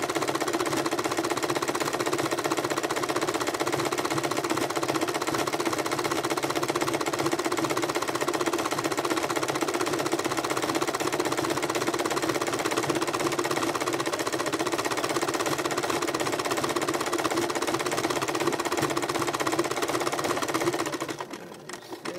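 Electric sewing machine running steadily, stitching through coiled fabric-wrapped rope; it stops briefly near the end.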